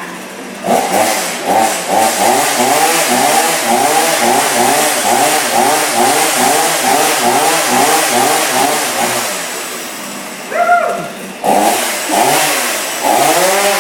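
Chainsaw engine revved over and over, the pitch rising and falling about twice a second. It breaks off briefly about ten seconds in, then starts revving again.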